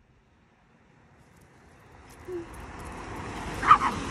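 Traffic noise from a wet street: a steady hiss that fades in from silence and holds. A short sharp sound comes near the end.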